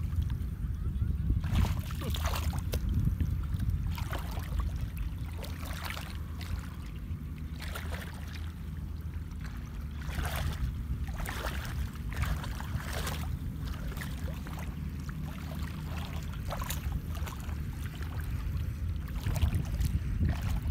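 Muddy water sloshing and splashing as a person wades barefoot and gropes with his hands through a shallow puddle, with irregular splashes every second or two over a steady low rumble.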